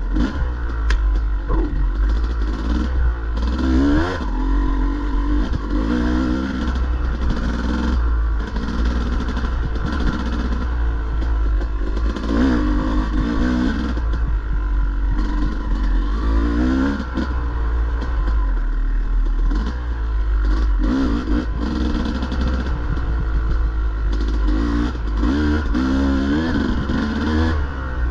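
Dirt bike engine revving up and falling back again and again as the throttle is worked on a rough enduro trail, with clattering and knocking from the bike over the terrain.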